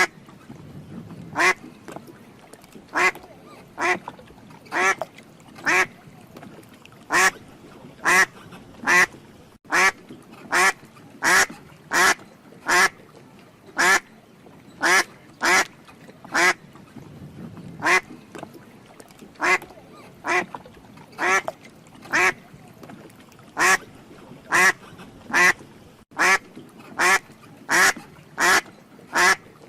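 Ducks quacking: a long series of short calls, about one and a half a second.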